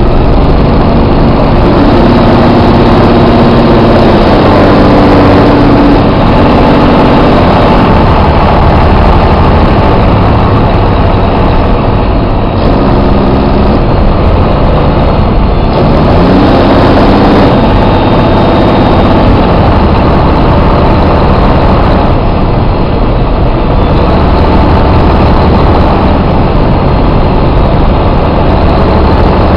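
Detroit Diesel Series 60 12.7-litre inline-six diesel in a coach, running loud and steady under way. Its note steps between pitches in the first few seconds and again around 13 seconds, then sweeps up around 16 seconds as engine speed rises.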